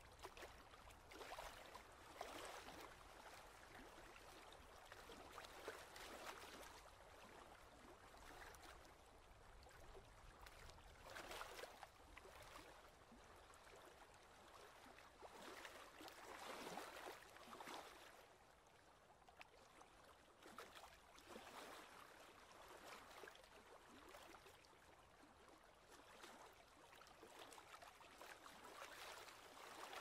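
Small waves lapping faintly against a rocky lake shore, in soft, irregular swells every second or two.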